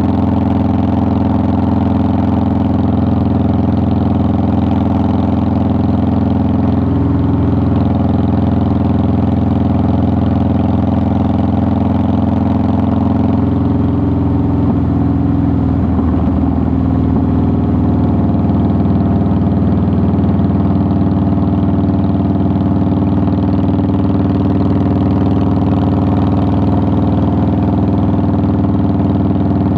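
2009 Harley-Davidson Softail Deluxe's air-cooled Twin Cam 96 V-twin running steadily at a nearly constant engine speed, with a brief change in pitch about halfway through.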